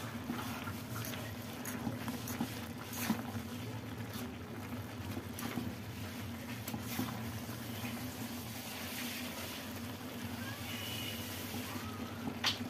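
A metal spoon stirring and lifting saucy noodles in a steel kadai: wet sloshing with scattered clicks and scrapes against the pan, over a steady low hum.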